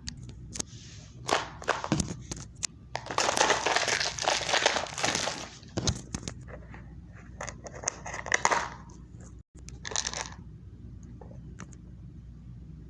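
Toy packaging being handled and opened close to the microphone: scattered crinkles and clicks, with a longer stretch of crumpling and tearing from about three to five and a half seconds in, and shorter bursts around eight and ten seconds.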